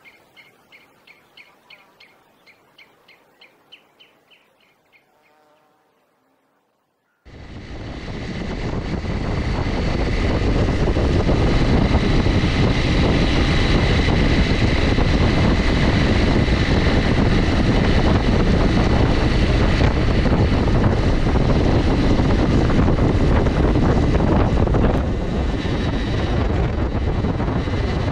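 A small bird chirping faintly, about twice a second. After a short silence about seven seconds in, loud steady wind and engine noise from a motorcycle being ridden cuts in suddenly, heard from a camera mounted on the bike.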